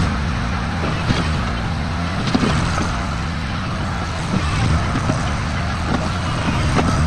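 Skid steer loader's engine running steadily, with a few brief knocks and clanks over it.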